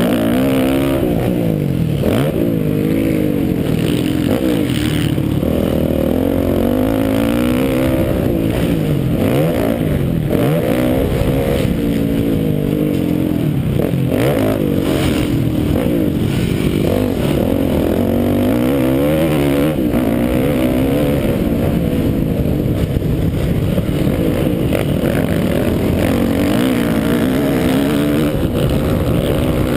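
Yamaha motocross bike's engine heard from the rider's helmet, revving hard and backing off again and again as the rider works the throttle and gears round the track, its pitch climbing and falling every second or two, with a few sharp knocks along the way.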